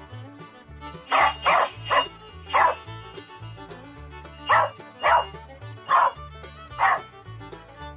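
A corgi barking: eight short, loud barks in two runs of four, with a pause of about two seconds between the runs, over background music.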